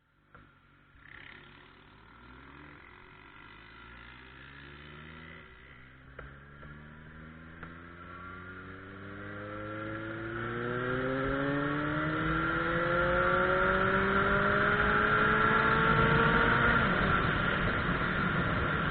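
Suzuki Bandit 1200's inline-four engine accelerating, its pitch climbing steadily and getting louder over many seconds. It peaks shortly before the end, then eases slightly.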